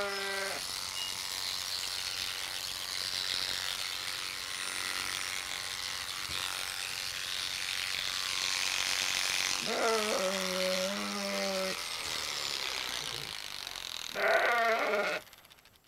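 Sheep bleating: once at the start, a longer, level bleat about ten seconds in, and a shorter one near the end. Under it runs the steady high buzz of electric livestock clippers.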